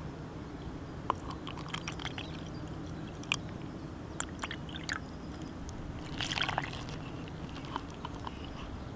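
Water poured from a plastic bottle into a small steel cup and then tipped into a bowl of flour, with scattered light clicks and knocks as the bottle and cup are handled.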